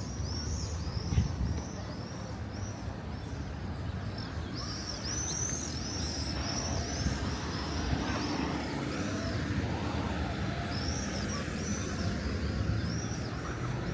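A small bird chirping in quick runs of short high notes, several a second, that stop and start again, over a steady low rumble of town background noise.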